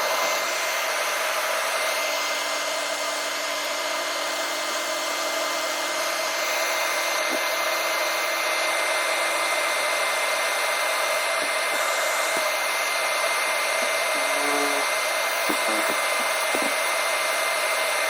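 An electric blower runs steadily, giving an even rushing air noise with a thin high whine, from a hot-air or extraction tool used during back-glass work. A few faint ticks come near the end.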